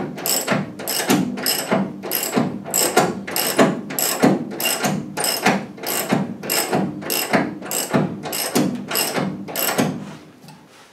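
Hand ratchet wrench clicking in steady, even strokes, about three clicks a second, as it winds down a coil spring compressor on the front suspension; the clicking stops shortly before the end.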